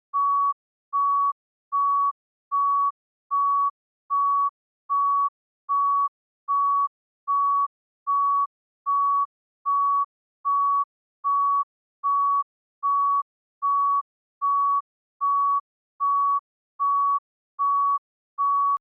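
Heart monitor beeping in a steady, even rhythm: the same single mid-pitched tone, each beep about half a second long, repeating roughly every 0.8 seconds (about 75 a minute), the pace of a regular heartbeat.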